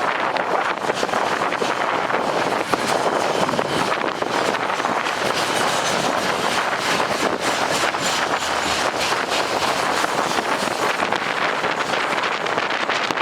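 A departing train running steadily, overlaid by gusty wind buffeting the microphone.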